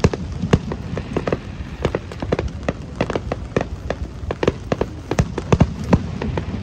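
Fireworks going off: a dense, uneven run of sharp bangs and crackles, several a second, over a low rumble.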